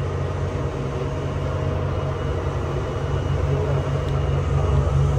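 Fireboat under way: its engines make a steady low drone, with the wash of water and wind over it.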